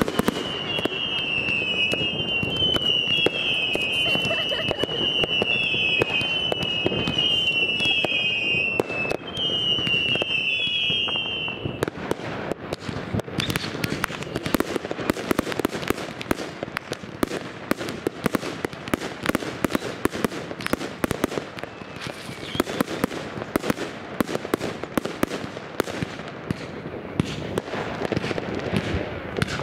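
New Year's Eve fireworks going off in a dense stream of bangs and crackling. For the first twelve seconds a high whistle repeats about once a second, each one dipping slightly in pitch.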